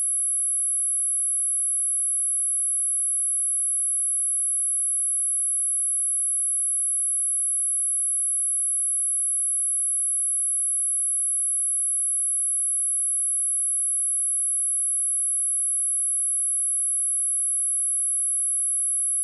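A single steady high-pitched 10865 Hz sine-wave test tone, held without change.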